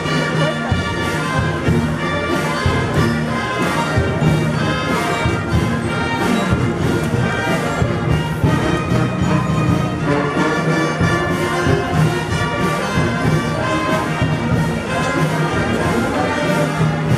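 Brass band playing a Guatemalan procession march: sustained brass chords over a steady beat.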